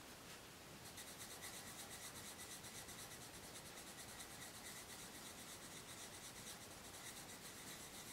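Coloured pencil rubbing on paper, shading in a swatch with quick back-and-forth strokes at several a second. It starts about a second in and is faint.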